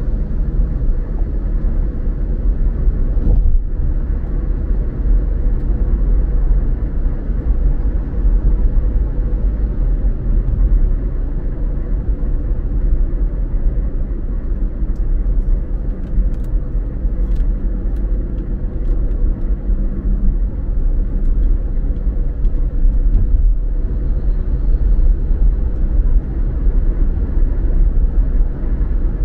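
A car driving at steady speed: a continuous low rumble of engine and tyres on the road. A few faint clicks come about halfway through.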